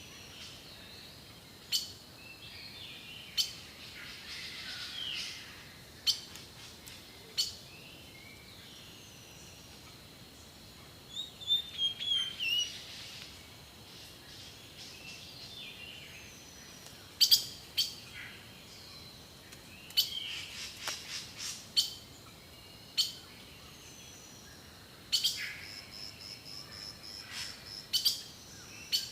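Several wild birds chirping and singing, with short sharp chirps and quick trills coming at irregular intervals and overlapping in places, over a faint steady high tone.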